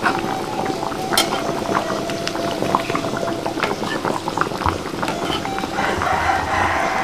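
A pot of thick coconut-milk curry bubbling at a boil, with a steady popping hiss and scattered small clicks and clinks.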